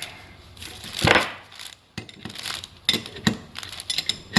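Metal parts of a brake caliper and hand tools being handled during reassembly: a few separate clinks and knocks, the loudest about a second in.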